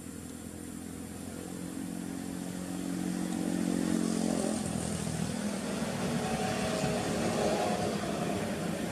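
A motor vehicle engine running and growing louder, its pitch rising about halfway through.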